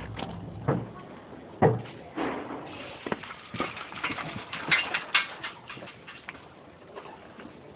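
A run of irregular light knocks and clicks, the sharpest a little under two seconds in and the busiest stretch from about three to five and a half seconds in.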